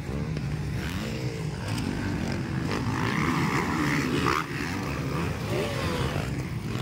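Motocross dirt bike engines revving, their pitch rising and falling as the bikes race over the jumps of the dirt track.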